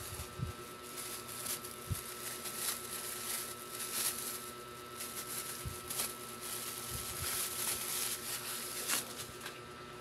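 Soft rustling and scattered light clicks of hands handling small parts and packaging, over a steady faint electrical hum.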